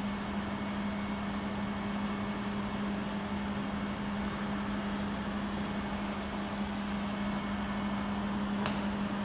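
Stand-type laser welding machine running just after switch-on: a steady hum with a constant low tone over an even rush of noise, and a single sharp click near the end.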